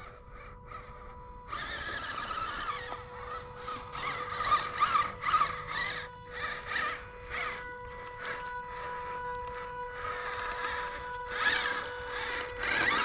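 Small electric motor and gearbox of an MN82 RC crawler whining as it drives through wet grass, the sound swelling and easing with the throttle over a steady thin tone. It gets louder about a second and a half in, surges a few times, and is loudest as the truck passes close near the end.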